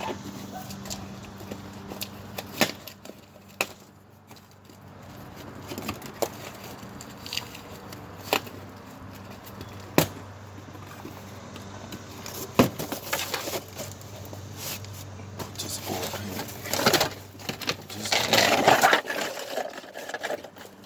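Hand tools working on a Nissan Altima's CVT transmission pan bolts: scattered sharp metallic clicks and knocks over a steady low hum, with a louder stretch of scraping and rustling near the end.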